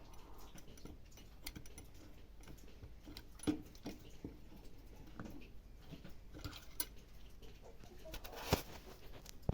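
Scattered light clicks and taps of tools and parts being handled during a lawn mower rebuild, with two sharper knocks about three and a half and eight and a half seconds in.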